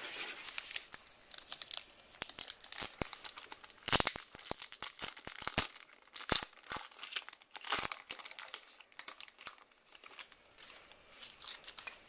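A trading card pack wrapper being torn open and crinkled by hand, with the crackle and rustle of the wrapper and cards being handled in irregular bursts.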